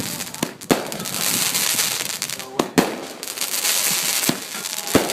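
Fireworks going off: a steady hissing crackle broken by sharp bangs, about six of them, two close together near the start and a pair near the middle.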